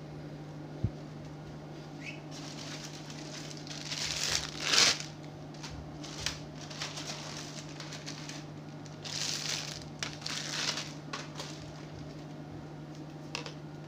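Handling noise: several bursts of rustling and crinkling, the loudest about five seconds in, over a steady low hum. There is a brief low knock about a second in.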